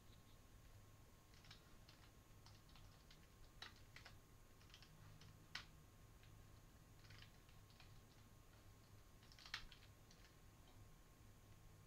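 Faint typing on a computer keyboard: scattered, irregular key clicks, a little louder about halfway through and again near the end.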